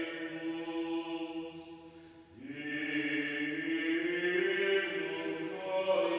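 Gregorian chant sung in a resonant church, with long held notes. The singing breaks off briefly about two seconds in, then starts a new phrase.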